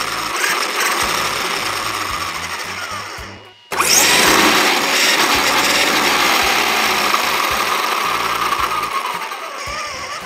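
Losi DBXL-E 1/5-scale electric RC buggy's brushless motor and drivetrain spinning the free-hanging wheels at high throttle, a loud whirring whine. It cuts off for a moment about three and a half seconds in, spins up again sharply, and winds down with a falling whine near the end.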